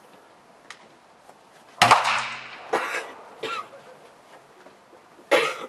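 Centrefire pistol shots from several shooters on an outdoor range, each with a sharp crack and a short echo. The loudest comes a little under two seconds in, two lighter shots follow within about a second and a half, and another loud shot comes near the end.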